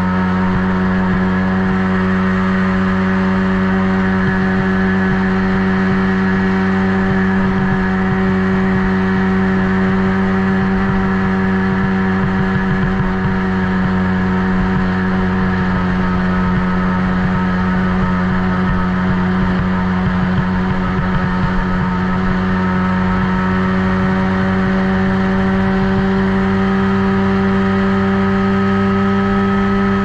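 Small youth ATV engine heard on board, running hard at a nearly steady high pitch as the quad laps a dirt track, with a rough rumble underneath.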